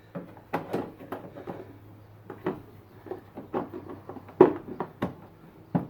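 Irregular clicks, taps and knocks of hands handling plastic parts around a headlight housing. The loudest knock comes about four and a half seconds in, with another sharp one near the end.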